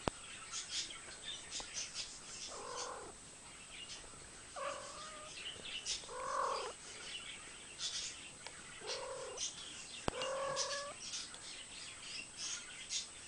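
Spaniel whining in five short calls, each rising then falling in pitch, spaced one to three seconds apart, with many short high chirps throughout.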